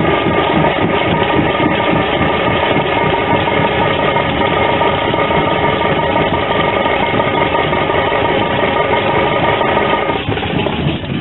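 Loud, dense drumming with music for a group drill display, continuous and steady, dropping away about ten seconds in.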